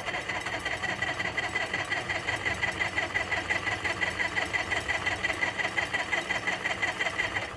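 The CAT D4-7U's two-cylinder gasoline pony motor turning over on its electric starter: a steady starter whine with an even, rhythmic chug of compression strokes, cutting off suddenly near the end. It is cranked without catching, on a weak battery.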